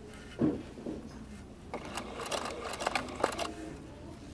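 Sewing machine stitching slowly in short spurts for silk ribbon embroidery, its needle clicking through a few stitches in a cluster over about a second and a half in the middle. A low thump comes about half a second in.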